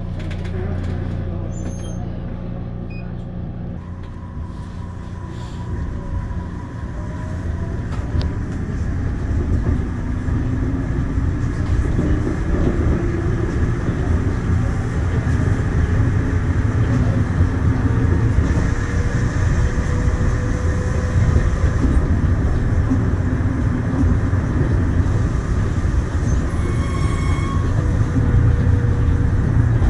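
Daegu Metro Line 3 straddle-type monorail train pulling out of the station and accelerating, heard from inside the car. A motor whine rises in pitch over a running rumble that grows louder, then the train runs steadily.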